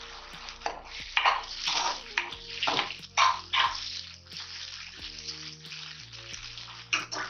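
A spatula stirring and scraping onion-tomato masala frying in oil in a kadai: a series of short swishing, sizzling strokes, most of them in the first four seconds and one more near the end.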